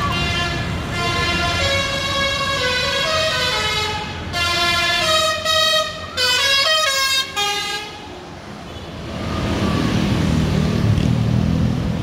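Basuri telolet musical horn on an ALS intercity bus playing a tune, several tones sounding together and stepping from note to note with short breaks and a brief sliding note about six seconds in. The horn stops near eight seconds, and the bus's engine rumble rises as it drives past.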